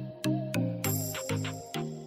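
Background music: a light melody of short notes that start sharply and fade, about two a second.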